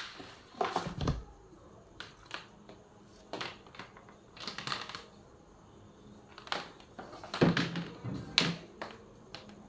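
Plastic parts of a flat-pack children's study table and chair being handled and unpacked: irregular clicks and knocks with bits of rustling, loudest about a second in and again near the end.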